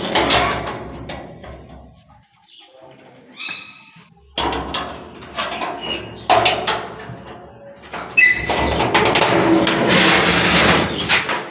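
Brass padlock and metal hasp on a sheet-metal coop door rattling and clanking as the lock is undone and the hasp worked free. From about eight seconds in, the metal door scrapes and clatters open loudly.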